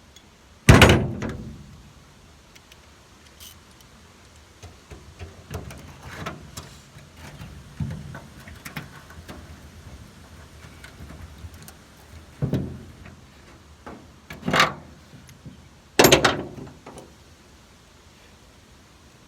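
A series of hard knocks and thunks: one loud thunk about a second in, lighter clattering in the middle, then three more thunks near the end.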